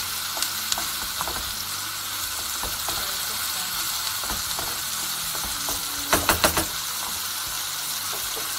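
Pork pieces with onion and garlic sizzling in a non-stick frying pan as the juices cook off, stirred and scraped with a wooden spoon. About six seconds in, a quick run of four louder knocks.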